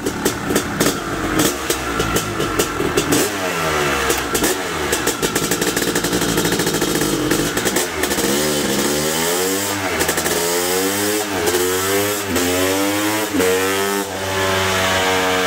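Honda CR500's 497 cc two-stroke single, fitted with an FMF Gnarly pipe and Powercore 2 silencer, being revved on a chassis dyno: the engine note climbs and falls again and again, about once a second through the second half, then holds at a steady pitch near the end.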